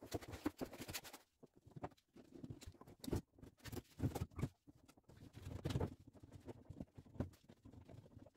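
Irregular light knocks, clicks and rustling of hand work on a car's underside: the fuel tank being set in place and fastened.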